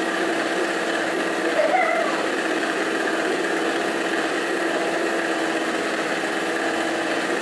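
Electric stand mixer running steadily, its beaters mixing cake batter in the bowl: an even motor hum at one pitch that does not change.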